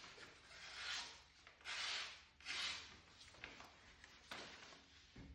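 Freshly sharpened Global G3 carving knife slicing through a sheet of paper, about five short hissing cuts roughly a second apart: a paper-cut sharpness test, where a smooth, even swish shows no nicks or chips in the edge.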